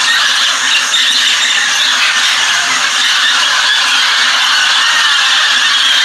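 A large flock of mealy parrots calling all at once, a continuous din of overlapping squawks and screeches without pause.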